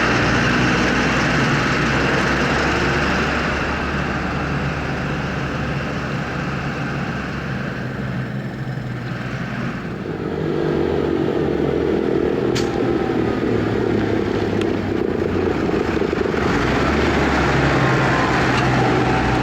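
Fendt tractor engine running steadily under load, with the working noise of a trailed potato harvester. The sound eases off in the middle and builds again about halfway through, with a single sharp click past the middle.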